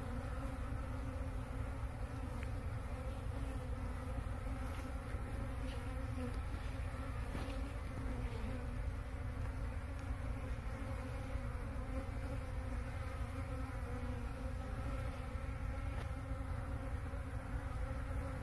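Many honeybees buzzing steadily as they fly around and crowd a sugar-syrup bucket feeder.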